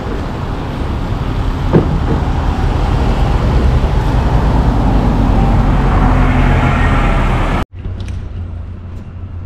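Road traffic passing: a loud, steady rumble and hiss that swells about five to seven seconds in, then cuts off abruptly near the end to a much quieter outdoor background with a few faint ticks.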